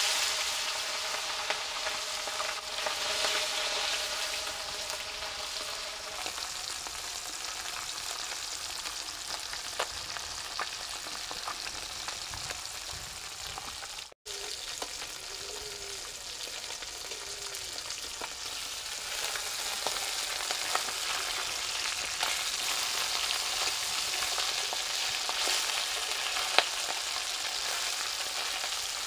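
Tangra fish sizzling and spitting as it fries in hot mustard oil in a kadai, a steady hiss with scattered crackles, loudest just after the fish goes in. The sizzle cuts out for an instant about halfway, then carries on.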